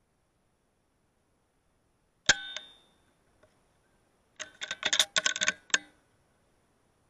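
A single sharp air-rifle shot with a short metallic ring, about two seconds in, then a quick rattle of a dozen or so metallic clicks and pings that ring with the same tone as the shot, over a second and a half.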